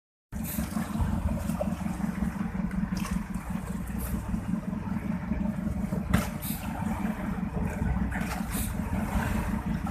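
Small fishing boat's engine running steadily underway, a low, rapid pulsing drone, with a few brief sharp sounds now and then.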